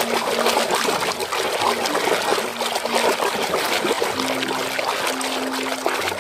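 Water sloshing and splashing continuously as a hand churns and scrubs a muddy toy in a tub of sudsy water, with many small splatters throughout.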